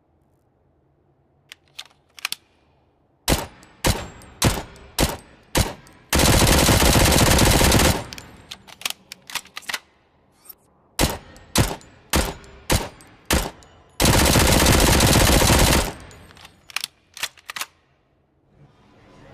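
Uzi submachine gun firing: a few faint clicks, then a run of single shots, a sustained burst of about two seconds, more single shots, a second burst of about two seconds, and a few final shots.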